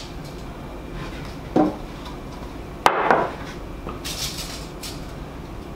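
Handling knocks from a metal tape measure and plywood panels on a wooden workbench: a light knock, then a sharper clattering knock about three seconds in, followed by a brief scraping rustle.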